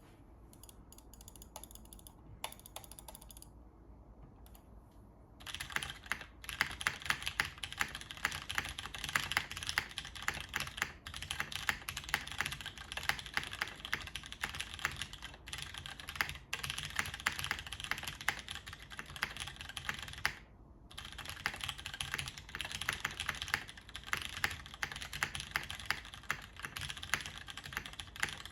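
Typing on a tenkeyless mechanical keyboard with Cherry MX Brown tactile switches on an aluminium plate and DCS keycaps. A few scattered key clicks come first, then fast continuous clacking starts about five seconds in, with a short pause about two-thirds of the way through.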